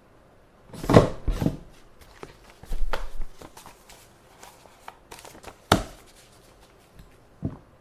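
Office desk sounds: paper rustled and shuffled in short bursts, with scattered small clicks and a sharper knock.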